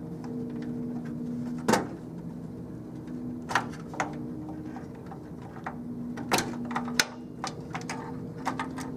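Sharp clicks and knocks of cable connectors being unplugged and handled inside a desktop PC, about five of them, over a steady low hum.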